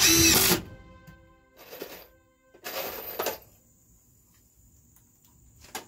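Cordless drill driving screws into wooden floorboards: a short run of the motor at the start whose pitch bends as it winds down, then a second, noisier burst about three seconds in, with low-level pauses between.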